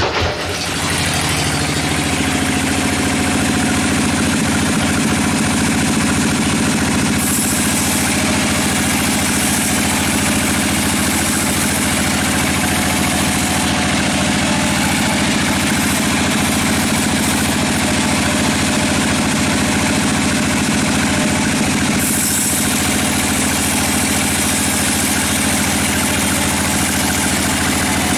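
Sawmill machinery running steadily at an even pitch, with a brighter hiss coming in twice for several seconds.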